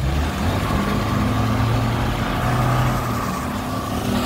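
Maruti Suzuki Gypsy's engine, running on LPG, runs steadily at a low, even pace while the vehicle drives over rough grassland.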